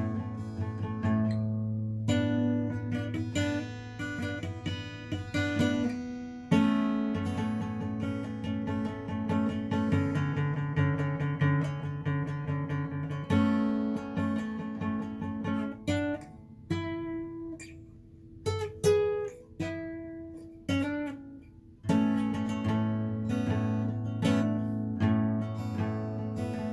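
Acoustic guitar strumming chords in a steady rhythm, with a short stretch of single picked notes and pauses partway through.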